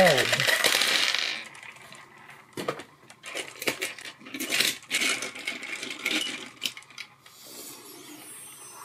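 Small hard balls clattering onto a tabletop as they spill out of a plastic bottle, dying away within about a second and a half. Then scattered light clicks as balls knock together and a toy car is set down among them.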